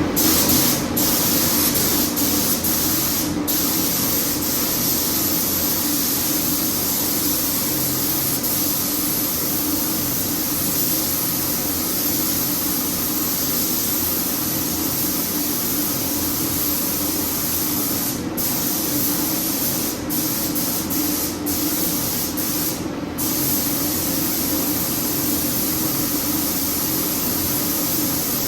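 Compressed-air paint spray gun hissing steadily as the engine bay is sprayed, with a few brief breaks where the trigger is let off.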